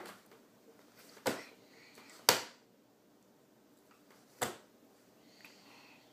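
Four sharp knocks about a second apart, the loudest a little over two seconds in: a baby knocking on the surface in front of her while feeding herself.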